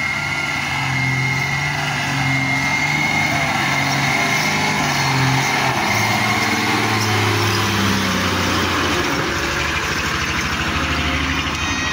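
A dump truck's diesel engine runs under load as the truck drives slowly past over loose gravel, its low note rising and falling. A thin steady high whine sounds over it for the first half.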